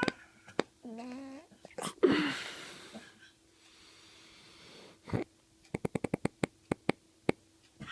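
A sleeping man snoring: a short pitched snore about a second in, then a loud, noisy gasping breath about two seconds in, as he grabs a breath. Later a quick run of sharp clicks, with a faint steady hum underneath.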